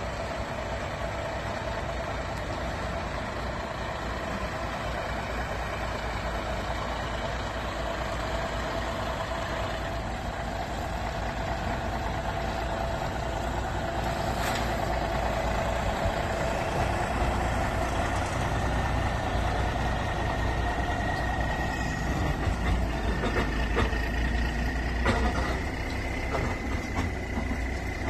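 Diesel semi tractor engine running under load as it slowly pulls a manufactured home section, a deep rumble that grows louder as the truck comes closer, with a steady high whine in the later part.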